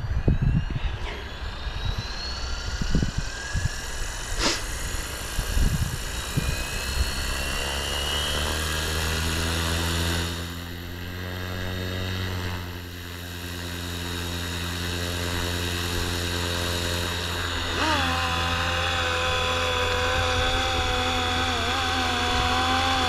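Electric FlyWing FW450 V3 RC helicopter spooling up: the motor and rotor whine rises in pitch over the first several seconds and then settles into a steady rotor hum. About three-quarters of the way through a higher whine comes in and wavers up and down as the throttle and load change, with a few low thumps near the start.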